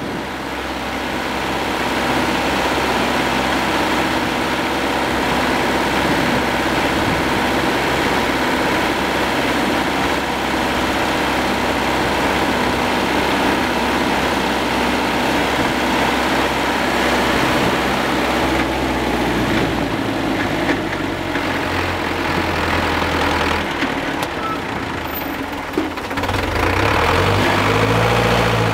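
Hürlimann D70 tractor's diesel engine running while driving, heard from the driver's seat. The engine note eases off about twenty seconds in, then climbs again with a rising pitch near the end.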